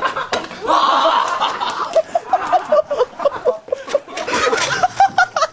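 A man laughing hard: a loud burst about a second in, then a long run of short rhythmic "ha" pulses, several a second.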